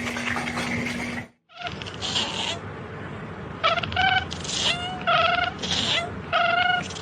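A cat meowing over and over, about five short, even-pitched meows in the second half, over steady background noise.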